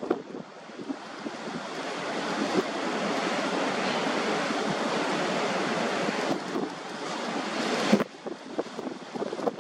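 Steady rushing of wind and harbour water with no distinct tones. It builds over the first couple of seconds and drops away suddenly about eight seconds in.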